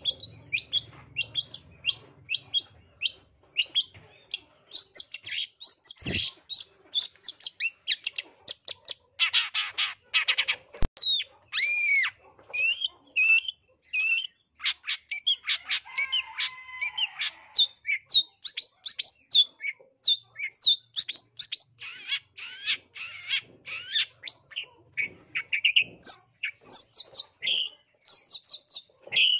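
Long-tailed shrike (cendet) singing a fast, varied song of short chirps, whistled glides and harsh buzzy rasps, with mimicked phrases mixed in. Two low knocks come through, about six and eleven seconds in.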